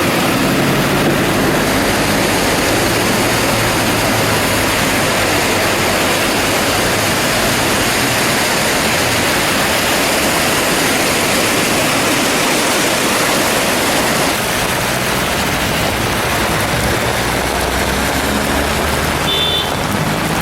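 Heavy thunderstorm downpour: a loud, steady rush of rain and running water. A vehicle engine hums underneath near the start and again near the end.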